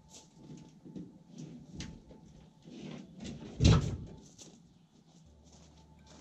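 Knocks and scrapes of a pickup truck bed being shifted by hand on wooden sawhorses, with one heavy thump a little past halfway.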